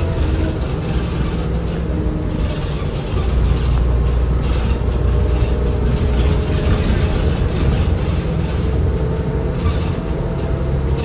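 Cabin sound of a 2005 New Flyer C40LF transit bus under way: its natural-gas Cummins Westport C Gas Plus engine and Allison B400R transmission running as a steady low rumble, with faint whining tones over it. The rumble grows louder about three seconds in.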